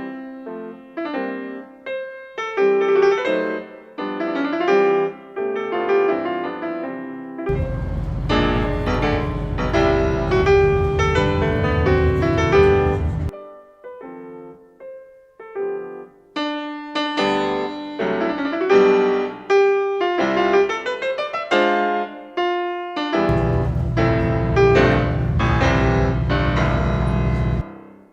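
Background piano music with a quick melody, joined by a steady low bass part about a quarter of the way in and again in the last few seconds, before it fades out at the close.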